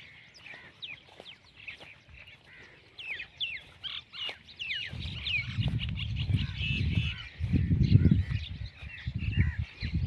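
A flock of birds calling, a dense chatter of short chirps and squawks that is busiest in the first half. From about halfway, irregular low rumbling buffets on the microphone become the loudest sound.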